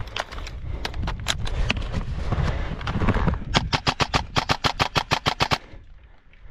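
Custom AR-style airsoft rifle firing a fast burst of shots, about ten a second for about two seconds, a little past halfway through. Before the burst there is shuffling of gear and a few scattered clicks.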